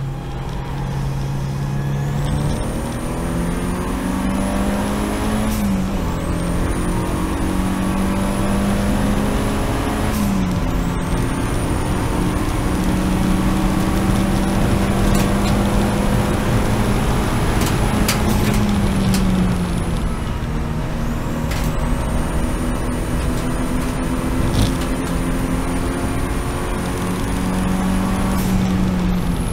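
Seat Leon race car's engine under hard acceleration, climbing in pitch and dropping back at each upshift, about four gear changes. A high thin whistle rises after each shift, and the engine pitch falls near the end.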